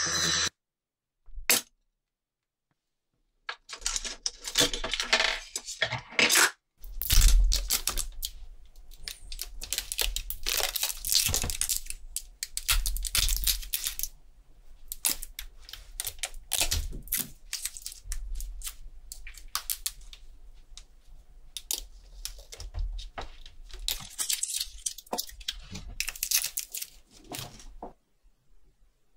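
Irregular clicks, taps and scraping of small metal watch parts being handled on a workbench, over a low steady hum.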